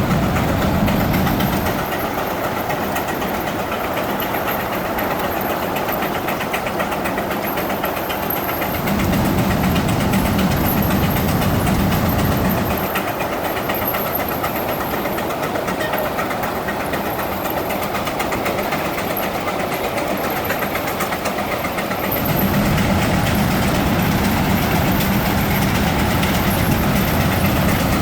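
Three Frick steam traction engines running belted to fans and a power-eater brake, their exhausts chuffing rapidly and steadily under load. A deeper rumble swells louder about nine seconds in for a few seconds, and again from about 22 seconds on.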